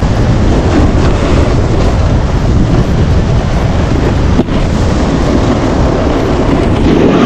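Wind rushing over the microphone of a camera worn by a snowboarder riding down a groomed piste, a loud steady rumble mixed with the hiss of the board sliding over packed snow. A single short knock about four seconds in.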